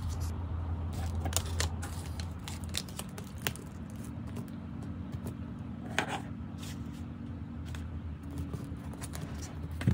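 Hands handling a paper planner, a wooden rubber stamp and plastic ink pad cases: light paper rustling and a few short taps and clicks, over a steady low hum.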